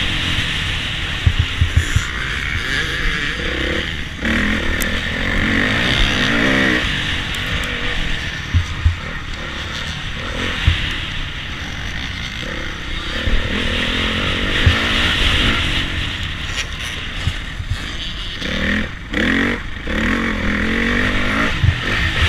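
Onboard sound of a Honda CRF450 motocross bike's single-cylinder four-stroke engine revving up and down under the rider's throttle, with a steady rush of wind noise and scattered knocks from the chassis over bumps.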